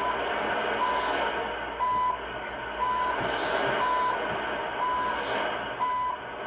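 CHU time station on 3330 kHz received by shortwave radio on an MLA-30 magnetic loop antenna: a short steady beep once a second, each about a third of a second long, over a steady hiss of band noise.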